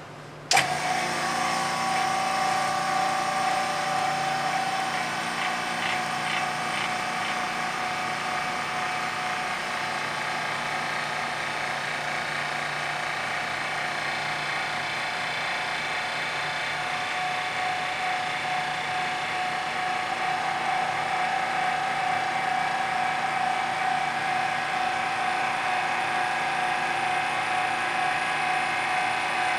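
BVV Pro Series 5.6 CFM two-stage vacuum pump switching on abruptly about half a second in, then running with a steady drone and constant whine while it evacuates the vacuum chamber.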